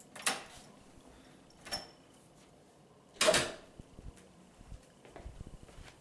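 An interior door being opened and shut: a latch click, a fainter click about a second and a half later, then a louder door knock about three seconds in. Soft footsteps follow.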